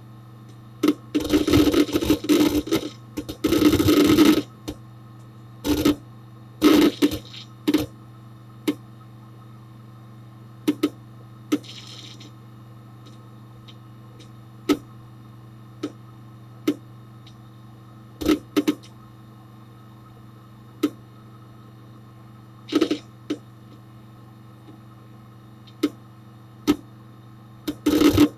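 Hard disk drive inside a Dell Dimension 4700 desktop, recorded from inside the case: sharp head-seek clicks over the computer's steady hum. A dense run of rapid seeking chatter comes about a second in and lasts a few seconds, then single or paired clicks every second or few.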